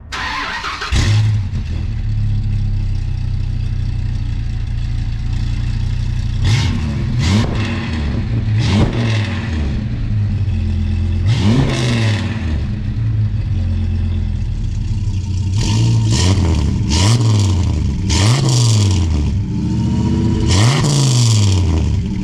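A Dodge Ram 2500's 8.0-litre V10 idling through its exhaust and being revved in short blips, about ten times, each rising and falling back to idle, more often in the second half.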